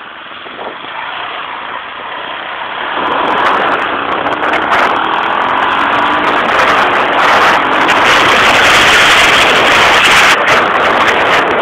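ATV engine running while riding, growing louder about three seconds in and staying loud, with a rushing noise over it.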